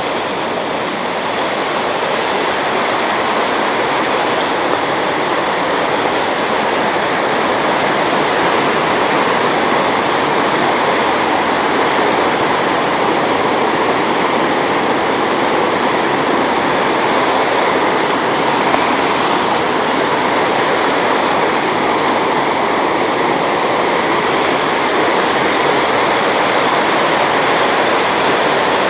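Fast, high-running mountain stream rushing over boulders and small cascades: a loud, steady rush of white water.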